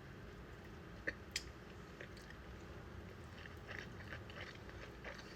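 Quiet chewing of crunchy shrimp sushi, with scattered soft crunches and mouth clicks; two sharper clicks about a second in.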